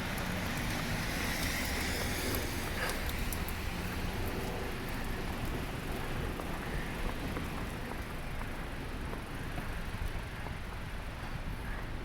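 Steady city-street noise in a snowstorm: passing traffic hissing on a wet, slushy road, mixed with wind on the microphone. It is a little louder in the first few seconds.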